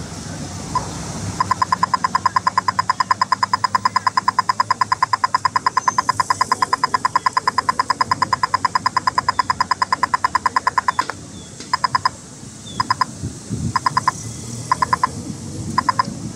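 Audible pedestrian crossing signal ticking: a single tick under a second in while the red figure shows, then a fast, even run of ticks once the green walking figure lights up. For the last few seconds the ticking breaks into short bursts with gaps between them.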